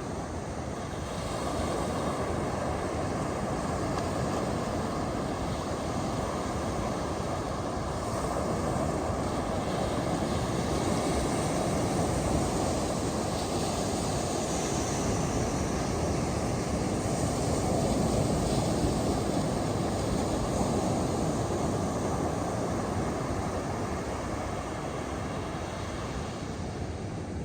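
Ocean surf breaking on a beach: a continuous wash of waves that swells and eases slowly, dropping a little near the end.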